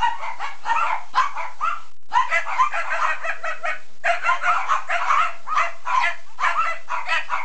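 Dog barking rapidly and repeatedly, several sharp barks a second, with short breaks about two and four seconds in.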